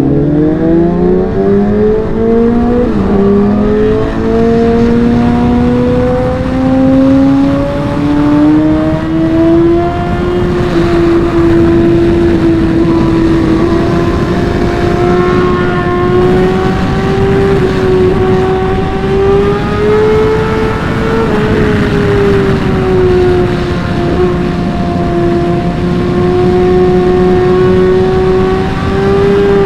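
Superbike's inline-four engine accelerating hard, with a brief dip at a gear shift about three seconds in, then held at high revs with small rises and falls. A steady rush of wind runs underneath.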